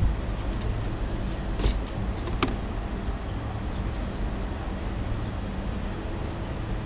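Car engine idling steadily, with a low hum, and a few light knocks and clicks in the first couple of seconds.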